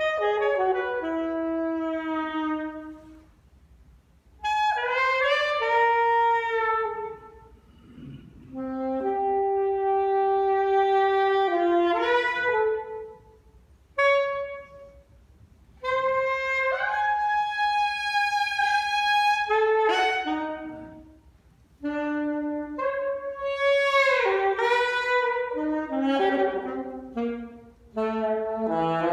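Unaccompanied saxophone playing a blues piece in separate phrases with short pauses between them, some phrases running quickly up and down and others settling on long held notes.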